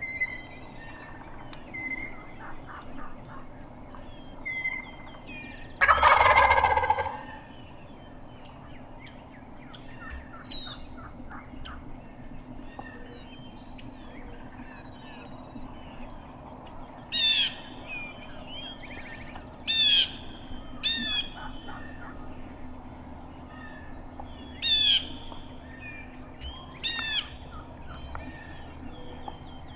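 A wild turkey gobbler gobbles once, loud and rattling, about six seconds in. From about halfway, short, sharp, high bird calls that slur downward repeat every second or two, over faint chirping.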